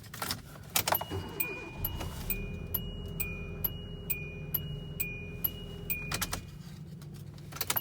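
The 2008 Hyundai Accent's electronic warning chime ringing over and over, two alternating high notes about two a second, while the key is worked in the ignition for another start attempt. A few sharp clicks come near the start and again near the end.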